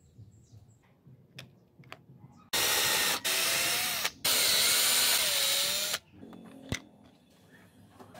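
Small electric drill boring a hole through a PVC end cap. It starts about two and a half seconds in and runs for about three and a half seconds, with two brief stops, its motor pitch wavering. A single sharp click follows shortly after.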